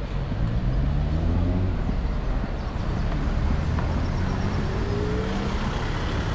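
Street traffic: a car engine running close by over a steady low rumble, rising in pitch as it pulls away in the first couple of seconds and again near the end.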